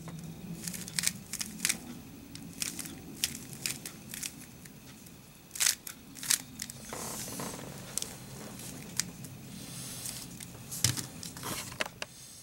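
Plastic Rubik's Cube being turned by hand: irregular clicks and scrapes of its layers, a few sharper snaps about six seconds in and near the end.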